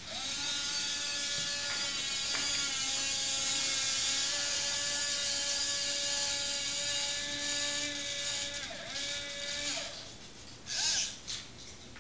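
Small electric motors of a Roomba fitted with a robot arm, whining steadily at a fixed pitch. Near the end the pitch dips and swoops twice, then the whine cuts off, followed by one short rising whine.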